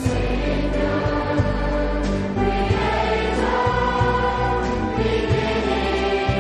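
A choir singing a worship song over instrumental accompaniment, with sustained held notes over a steady bass line.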